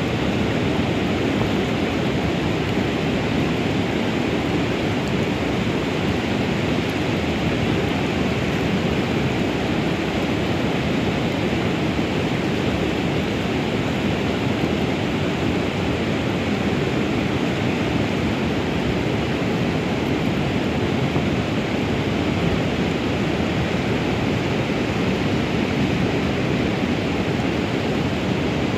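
Steady rush of a fast-flowing river running over shallow riffles, an even noise with no breaks.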